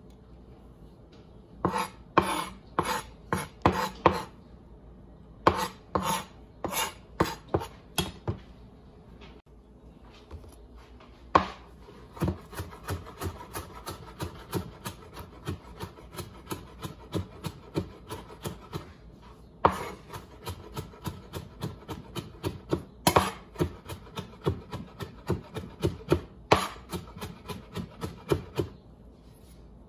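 Chef's knife chopping fresh parsley on a plastic cutting board: rapid knocks of the blade on the board, several a second. It comes in two short runs, then after a brief pause becomes steady chopping through most of the rest.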